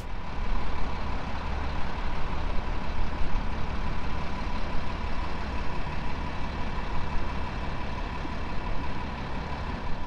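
Outdoor traffic noise: vehicles and trucks passing with a heavy low rumble, under wind buffeting the microphone, and a faint steady hum.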